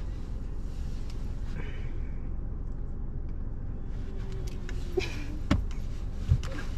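Steady low rumble inside a stationary car, with a few light clicks and knocks in the last two seconds.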